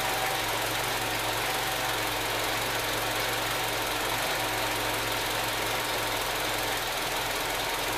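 A Nissan car engine idling steadily under the open hood as it warms up.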